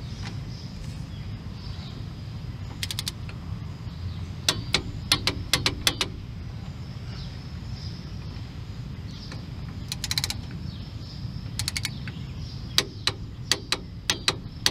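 Click-type torque wrench ratcheting in several short runs of sharp metallic clicks, tightening a front brake caliper slide bolt to torque.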